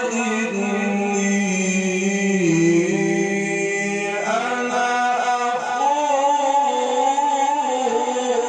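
A man's voice in melodic Quran recitation, drawing out long held notes. The pitch sinks slowly, rises sharply about four seconds in, then wavers on a sustained ornament near the end.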